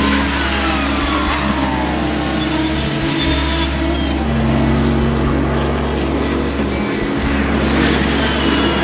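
Prototype race car engines howling past at speed, the pitch falling as a car goes by about a second in, with more passes near the end, over background music.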